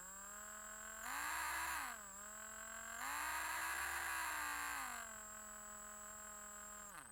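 Electric drill motor running with a steady whine. Its pitch and loudness rise twice as it speeds up, briefly about a second in and longer from about three to five seconds in, then drop back. It winds down near the end.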